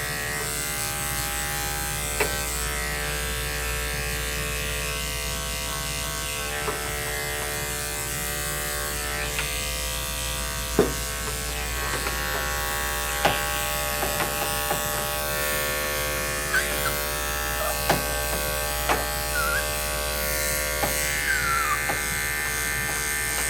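Electric dog-grooming clippers running steadily with an even buzz while shaving down a puppy's matted coat, with a few sharp clicks here and there.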